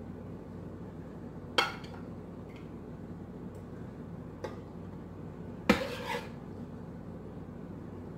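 Serving spoon clinking against a pot and plate as cooked black beans are dished out. There are three sharp clinks, the loudest about two-thirds of the way in with a short ring.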